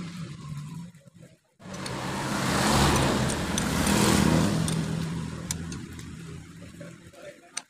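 A motor vehicle engine running steadily in the background, swelling louder about two to four seconds in and cutting out briefly once, with a few light metallic clicks from hand tools on engine parts.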